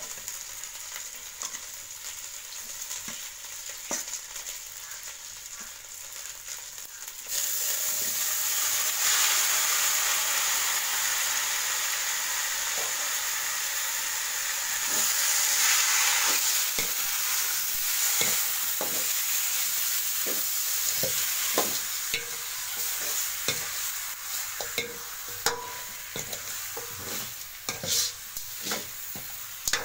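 Onions and chillies sizzling in hot oil in a large wok, with a few light clicks. About seven seconds in the sizzle suddenly jumps much louder as the raw chicken pieces go into the oil, then eases off. In the last third a spatula scrapes and knocks against the wok many times as the chicken is stirred over the quieter sizzle.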